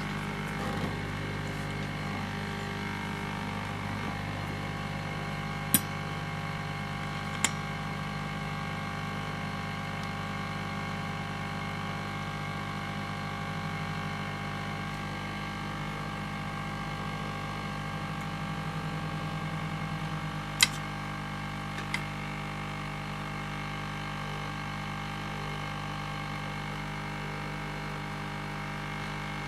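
Hot-air rework station running steadily, its blower fan humming, while it heats a flash memory chip on a router board to desolder it. A few sharp clicks sound over it, twice early on and twice past the middle.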